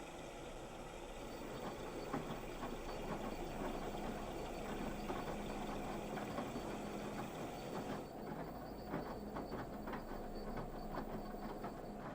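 Washing machine running mid-cycle: the drum turns with a steady rumble and irregular knocks and clicks as the wash moves inside. A background hiss drops away about eight seconds in.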